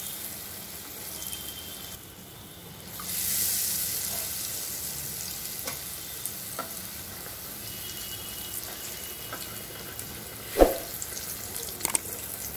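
Batter-coated banana-flower chops deep-frying in hot oil in a kadai: a steady sizzle that swells about three seconds in. A single sharp knock near the end.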